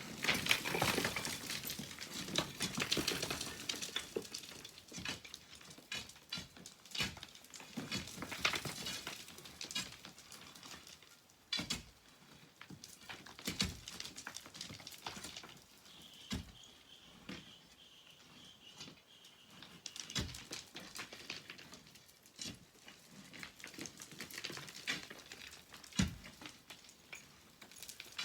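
Sand and pebbles falling and clattering, with a steady run of small stones clicking against one another and loose sand rustling; the clatter is densest in the first few seconds and thins to scattered single clicks later.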